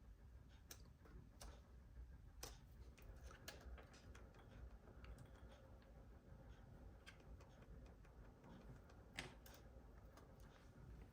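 Near silence with faint, scattered clicks and taps of small hard objects; the loudest come about two and a half seconds and about nine seconds in.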